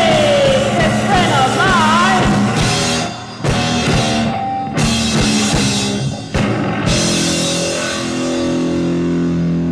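Gothic rock band playing the end of a song: drums and guitars with a wavering high line early on, then a held chord ringing out from about seven seconds in.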